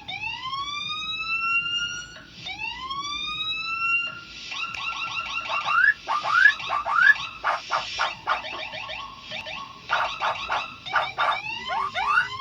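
Starling (jalak) mimicking a police escort siren: two rising siren whoops, then a fast stuttering run of short rising yelps and chirps.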